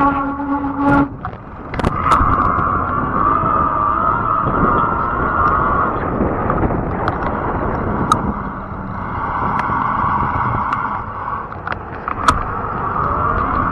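Fat-tire electric bike underway: a high motor whine that wavers, dips and returns, and rises again near the end, over steady wind and tyre rumble, with scattered sharp clicks.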